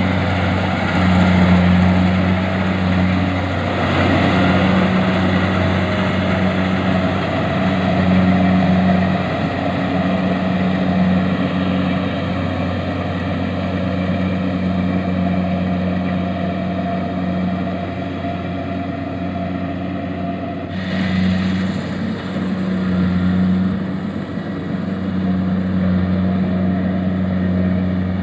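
Engine of a rice harvesting machine running steadily with a low hum, its sound growing brighter and noisier about three-quarters of the way through.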